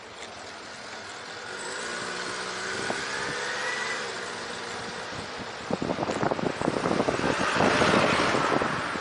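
A motor vehicle passing close by, its engine hum rising a little and then falling away. From about six seconds in, wind buffeting the microphone of a moving bicycle, with a louder rush of traffic noise near the end.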